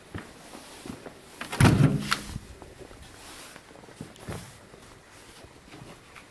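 Interior door being moved. A loud knock and rattle comes about a second and a half in, followed by a few lighter knocks.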